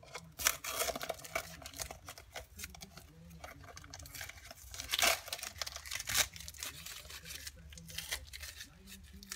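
Irregular workbench handling noises: clicks, scrapes and rustling, with a louder rush of scraping noise about five seconds in.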